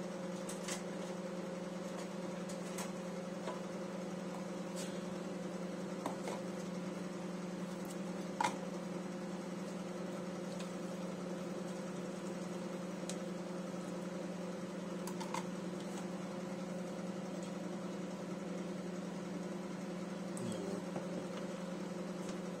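A steady low electrical hum with a few light, scattered taps and clicks of a plastic fork against a plastic microwave pot as a casserole is stirred.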